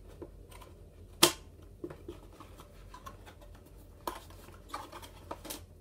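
Scissors snipping through the tape seal of a small cardboard box, then the box flaps being pried open, as a few scattered sharp clicks and snips. The loudest click comes about a second in.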